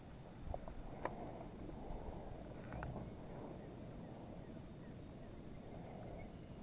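Faint steady outdoor background noise, with a few light clicks and taps in the first three seconds.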